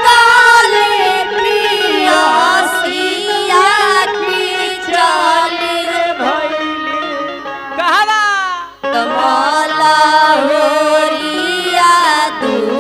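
A woman singing a Bhojpuri dugola folk song into a microphone over a PA, with instrumental accompaniment; the voice waves and glides in pitch and breaks off briefly about nine seconds in.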